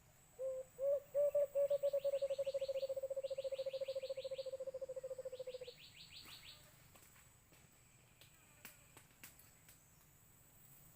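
White-eared brown dove calling: a run of low hooting notes that starts slowly, speeds up into a rapid trill and fades out over about five seconds. Three short bursts of fast, high chirping sound over it.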